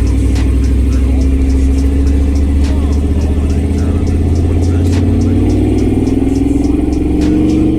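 Truck engine running loud under way, with a deep steady rumble and an engine note that climbs slowly in pitch through the second half as it speeds up.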